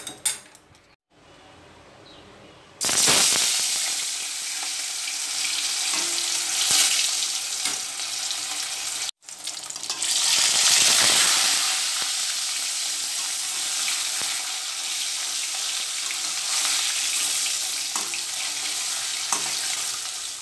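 Marinated katla fish pieces sizzling in hot mustard oil in a kadai, with a spatula moving them. The sizzle starts suddenly about three seconds in as the fish goes into the oil, and cuts out for an instant about nine seconds in.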